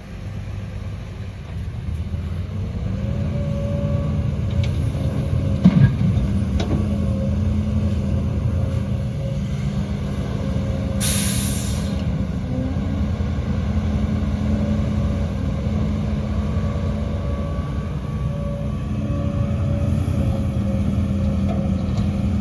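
Diesel engine of heavy earthmoving machinery running steadily, its note rising about two seconds in. A sharp clank comes near six seconds, and a short hiss of released air about eleven seconds in.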